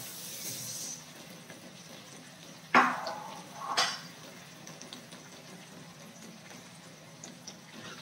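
Chicken feet in thick, reducing adobo sauce sizzling softly in a pan, with a high hiss that fades out in the first second. About three seconds in comes a short liquid plop, the loudest sound, and a smaller one a second later.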